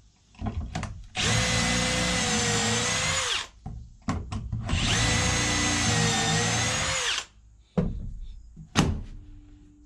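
Cordless drill with a stepped pocket-hole bit boring into a white pine 2x4 through a Kreg pocket-hole jig: two runs of about two seconds each, with a short pause between. A few sharp knocks from handling the drill and wood come between the runs and after them.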